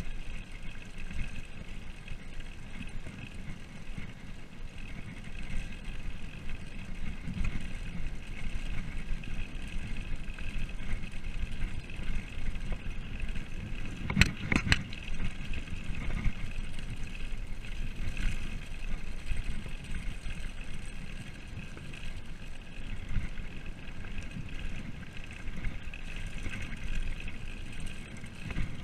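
Mountain bike rolling fast down a gravel road: a steady low rumble with rattle, and a few sharp knocks about halfway through.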